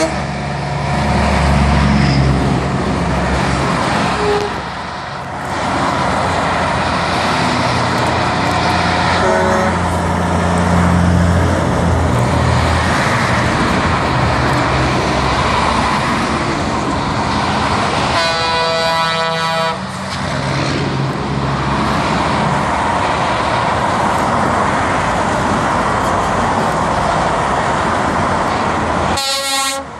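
Convoy of heavy trucks and cars passing along a motorway below, with engine drone swelling as trucks go by and steady tyre noise. A truck horn sounds for about a second and a half about two-thirds of the way through, and another short horn blast comes at the very end.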